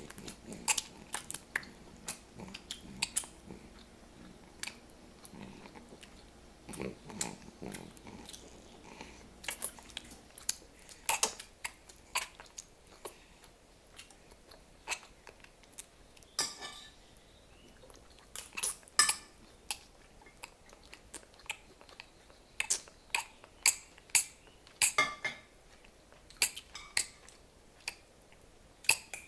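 A baby sucking and gnawing on his own hand: irregular wet smacking and clicking mouth sounds.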